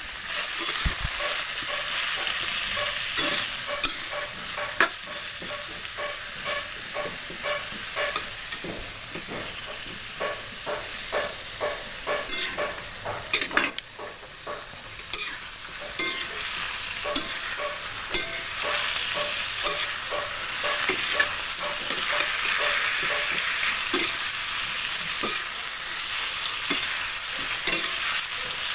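Sliced green papaya frying in a pan with garlic and onion, a steady sizzle, while a utensil scrapes and knocks against the pan as it is stirred, in places about twice a second.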